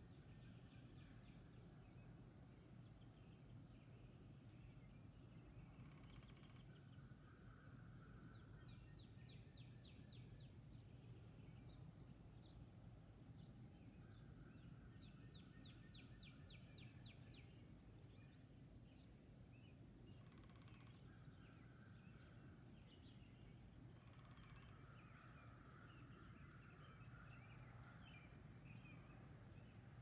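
Faint songbirds singing at dawn: scattered chirps and song phrases, with two rapid runs of repeated high notes, over a steady low hum.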